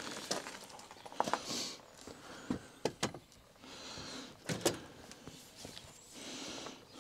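Footsteps crunching on gravel, with a scattering of short knocks and clunks as axes are handled and swapped.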